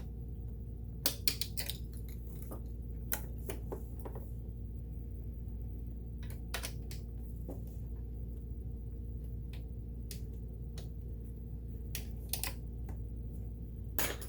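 Small hard clicks and light metallic clinks at irregular intervals, from small tools being handled during sewing machine disassembly, over a steady low hum.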